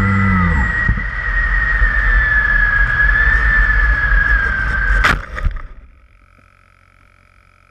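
Onboard sound of an EasyStar RC foam plane: its electric motor spins down at the start, then a steady rush of air as it glides in low. About five seconds in, a sharp knock as it touches down hard in the grass and stops, after which only a faint steady high tone remains.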